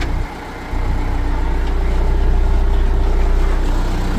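John Deere 310E backhoe's four-cylinder diesel engine running at a steady idle just after starting. A sharp click comes at the start, and the sound briefly dips about a third of a second in before the engine drone returns.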